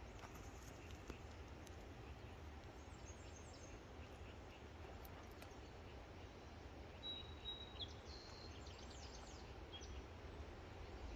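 Faint outdoor ambience with a few distant bird calls: thin high chirps about three seconds in, then a short run of chirps and whistles a few seconds later.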